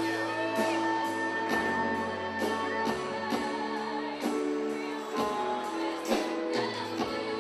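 Live band music with singing: held keyboard chords under a steady percussion beat of about two strokes a second.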